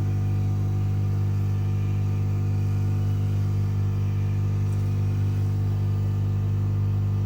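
Hot air gun running, a steady electric hum from its fan motor, used to heat the phone so it can be opened.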